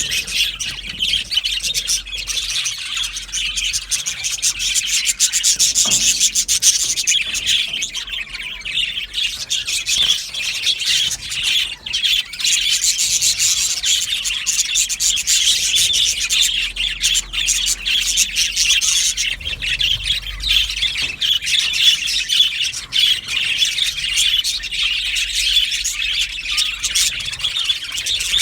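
A flock of budgerigars chattering and chirping together, a dense, continuous chorus of warbles and chirps.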